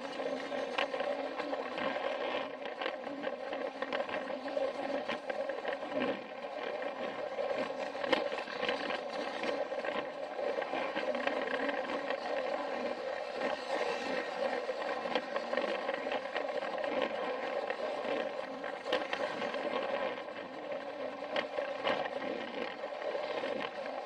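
Plarail battery-powered toy train running on plastic track, heard from on board: a steady whine from its small electric motor and gearbox, with scattered clicks as the wheels pass over the track joints.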